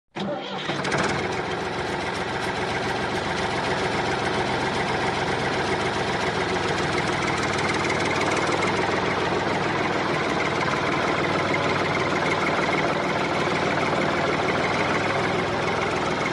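Small engine of a home-made miniature tractor running steadily with a rapid, even beat, growing slightly louder over the first few seconds.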